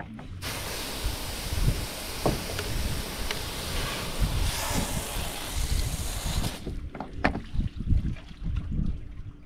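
Marina pump-out hose sucking at a boat's holding-tank deck fitting: a rushing hiss that starts about half a second in and cuts off after about six seconds. Wind rumbles on the microphone throughout.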